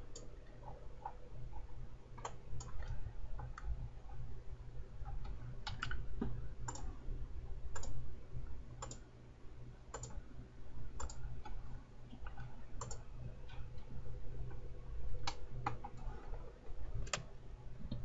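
Computer mouse clicking irregularly, roughly once a second, over a low steady hum.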